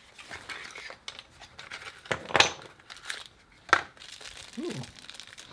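Small plastic bag of screws and fittings from an installation kit crinkling and rustling as it is handled and opened, with two sharp, louder crackles about two seconds in and just under four seconds in.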